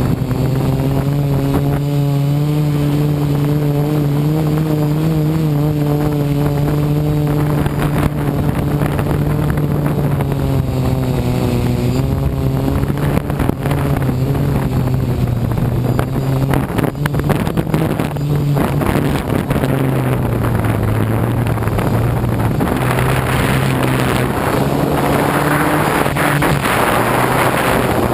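The motors and propellers of a DJI F450 quadcopter, heard from its onboard camera, drone in a steady hum whose pitch wavers slightly as the thrust changes. Wind rush on the microphone grows louder near the end.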